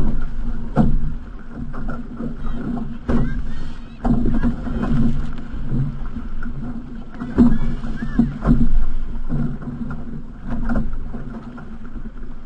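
Outrigger canoe hull running through choppy sea, water rushing and slapping against the hull with sharp splashes every second or two as it punches through the chop and the paddles bite.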